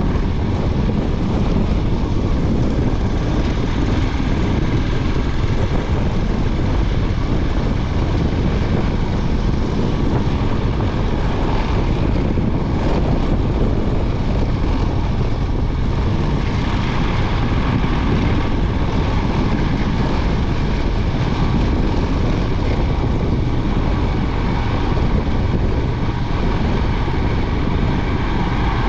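Royal Enfield Himalayan 411's single-cylinder engine running steadily while the motorcycle is ridden.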